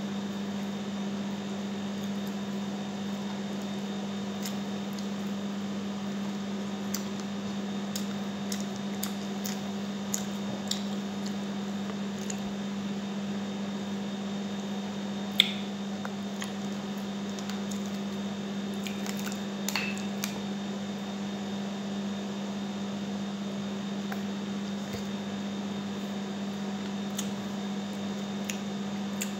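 Close-up eating sounds of a person eating glazed chicken with her fingers: wet chewing, lip smacks and a few light clicks, with one sharp click about halfway through, over a steady low hum.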